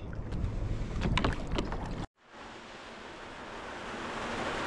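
Wind buffeting the microphone over lapping sea water around a kayak, with a few sharp knocks, cut off abruptly about two seconds in. Then a steady hiss of rain starts and grows louder.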